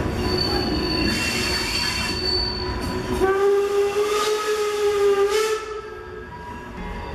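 Vintage railway passenger coaches rolling slowly round a curve, their wheels giving a high, steady squeal for the first three seconds. Then a train whistle sounds for about two and a half seconds.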